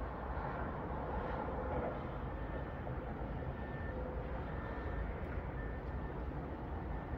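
Steady ambient background noise, heaviest in a low rumble, with faint short high tones a few times from a couple of seconds in.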